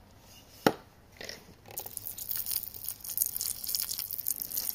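Water splashing over a yellow agate ball and the rock around it, a steady hissing splash from about two seconds in that stops at the end. A single sharp click comes a little before, under a second in.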